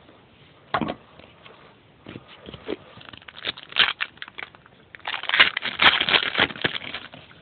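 Foil trading-card pack wrapper crinkling and cards being handled, in irregular snaps and rustles. There is a sharp snap about a second in and a denser stretch of crinkling near the end.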